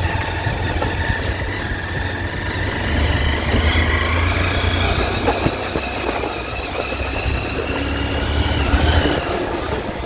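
Motorcycle engine running as it rides slowly along a rough dirt track, with a steady low rumble throughout.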